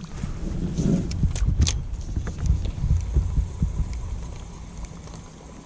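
Wind buffeting the camera microphone: a low, uneven rumble with a few sharp clicks about a second and a half in, dying down toward the end.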